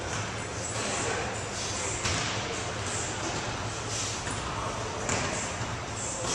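A man breathing hard through a max-rep set of goblet squats with a heavy dumbbell, a loud breath about once a second, over a steady low hum.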